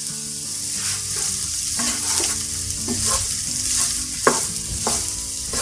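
Wooden spatula stirring and scraping potato and coriander masala around a nonstick frying pan, about eight irregular strokes, over a steady sizzle of oil in the still-hot pan with the flame turned off.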